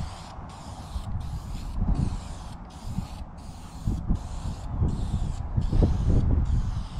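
Aerosol can of vinyl and fabric dye spraying in short repeated bursts, about two a second, each a hiss with a brief gap between, as a coat of dye is put onto a plastic car door panel.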